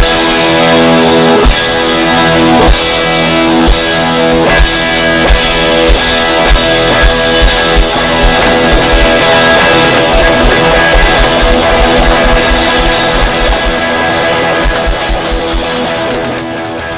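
Rock music with guitars and a drum kit, the kick drum growing busier in the second half, fading out near the end.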